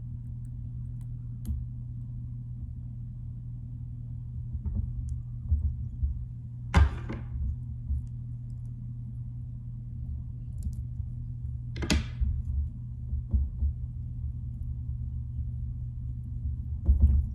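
Handling noises at a fly-tying vise: scattered soft low thumps and a few sharp clicks, two of them standing out about seven and twelve seconds in, over a steady low hum.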